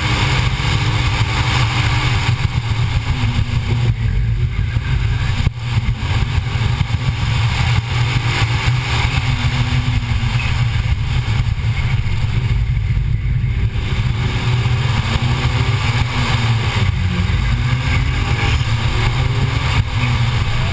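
Car engine under hard driving on an autocross course, its pitch rising and falling repeatedly as it accelerates and lifts between cones, over a heavy low rumble.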